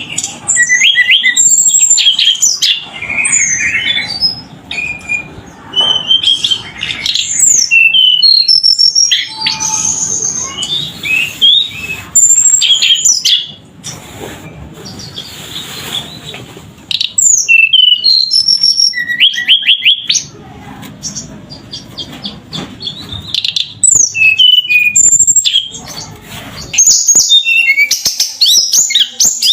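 Tledekan songbird singing busily: rapid runs of short, high chirps and whistles that slide up and down, with a few brief pauses between bursts.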